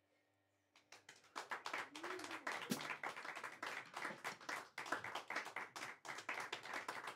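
A small audience clapping by hand, starting about a second in after near silence.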